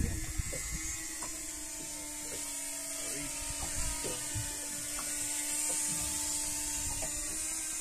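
Small quadcopter drone hovering overhead: a steady buzzing hum of its propellers, with scattered faint clicks.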